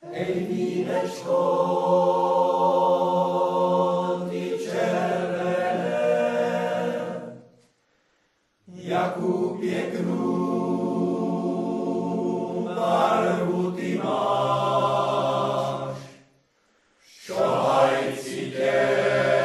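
Men's choir singing a Moravian folk song a cappella in slow, long-held chords. It comes in three phrases, with a brief silence after about seven seconds and again after about sixteen.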